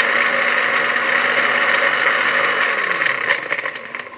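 Small electric grinder's motor running steadily as it grinds bitter gourd seeds in its glass jar, then slowing and winding down over the last second as it is switched off.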